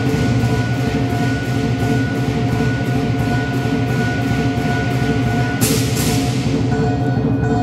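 Southern lion dance percussion: a big drum beating, cymbals clashing about three times a second and a gong ringing steadily. Near the end the cymbals break off after a louder clash, leaving the drum and the ringing gong.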